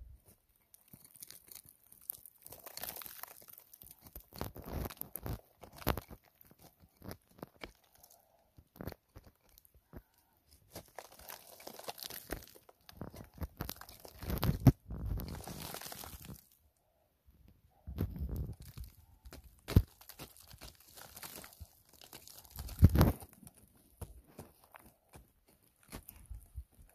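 A small pointed hand tool scraping and prying at crumbly opal-bearing clay and rock, the clay crunching and broken bits clicking and trickling down. The scrapes come irregularly, with a few louder crunches.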